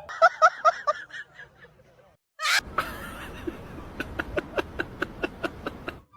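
A person laughing in short, quick bursts. After a brief silence comes a sharp sudden noise, then a fast run of sharp taps or clicks, about four a second.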